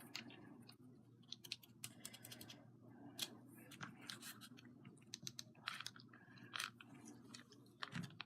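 Faint, irregular clicks, taps and scratches from small craft pieces and tools being handled on a tabletop, over a low steady hum.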